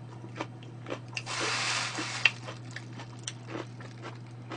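A person chewing food with the mouth closed: soft wet clicks and taps, a brief rustling hiss about a second in and a sharp click just after it, over a steady low hum.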